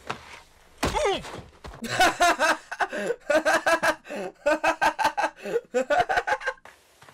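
A dull thunk with a short groan falling in pitch about a second in, then a young man laughing hard in rapid bursts for several seconds.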